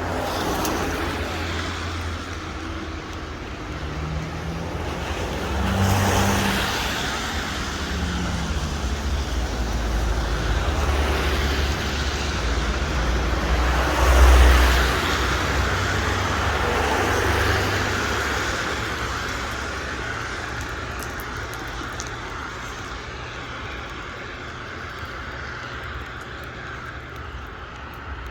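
Street traffic passing on a rain-wet road, with tyre hiss and engine rumble. One vehicle goes by about six seconds in and a louder one about fourteen seconds in, and the sound eases off towards the end.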